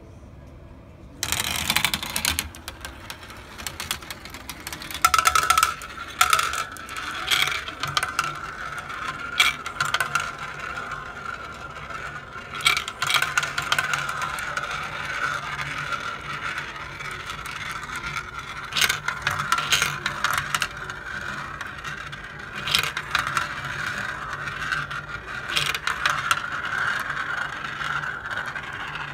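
Glass marbles rolling through a plastic marble-run track and circling in plastic funnel bowls: a continuous rolling whir with sharp clicks and clatter as the marbles knock together and against the plastic. A burst of rattling about a second in as they are let go.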